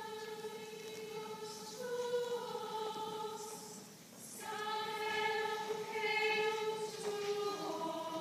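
Choir of women's voices singing slow, long-held notes in a chant-like line, with a short breath break about four seconds in before the singing resumes.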